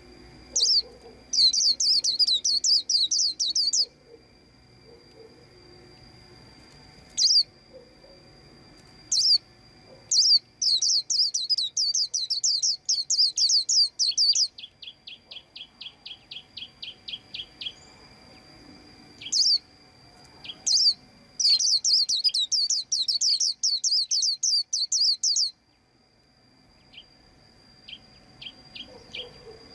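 White-eye twittering in three long bouts of fast, high trilled song, each a few seconds long. Between bouts come single sharp calls and, in the middle, a run of evenly spaced lower chip notes at about seven a second. A faint steady high tone runs underneath.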